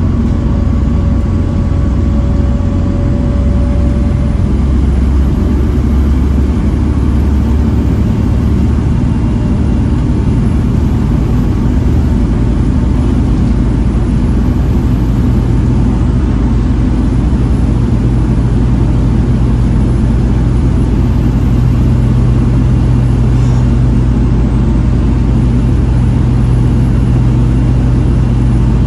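Volvo B7TL double-decker bus's diesel engine running as the bus drives along, a steady deep rumble. A faint high whine rises and falls over and over.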